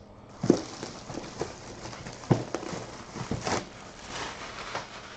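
Clear plastic wrap crinkling as it is pulled off and handled, with several knocks from a cardboard box being moved, the loudest about half a second and about two and a quarter seconds in.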